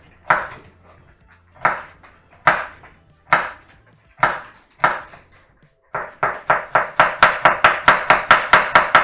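Broad-bladed kitchen knife chopping an onion on a wooden cutting board. Single slow cuts come about a second apart, then from about six seconds in a fast, even run of about four chops a second as it is minced fine.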